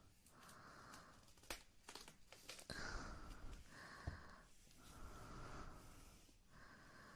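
Close-miked ASMR mouth sounds: soft, airy breaths in and out, about a second each, with a few sharp wet mouth clicks between them.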